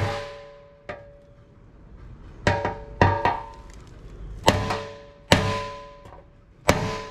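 Body hammer striking the inside of a steel Harley rear fender in a run of about ten irregular blows, some hard and a few light, each leaving a brief metallic ring. The blows are beating out a crease in the sheet metal.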